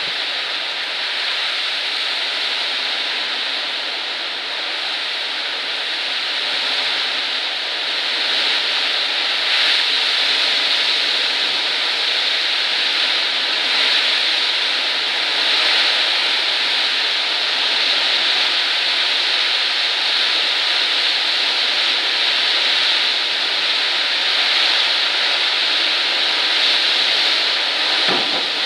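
High storm winds, a steady loud rushing noise that grows a little louder about eight seconds in.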